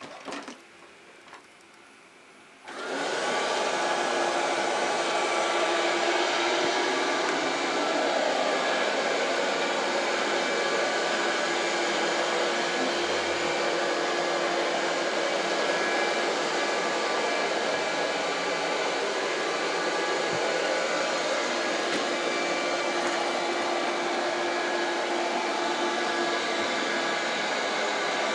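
A few short clicks, then about three seconds in a Gutrend Joy 90 Pet robot vacuum's motor switches on and runs steadily with a loud, even whir.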